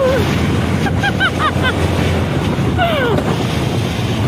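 Wind buffeting the microphone on a moving scooter, a steady heavy rumble, with a woman's laughter about a second in and a falling whoop near three seconds.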